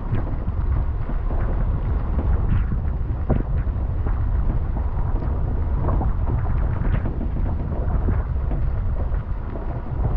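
Toyota Hilux driving down a rough, rocky track: a steady low rumble of engine and tyres, with wind buffeting the microphone and scattered knocks and crunches as the tyres roll over loose stones.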